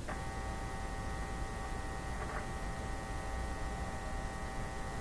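Steady electrical mains hum from a powered-up vintage Philco tube radio under test, a buzzy hum with a row of higher overtones that starts abruptly at the very beginning and holds steady. A faint click comes about two seconds in.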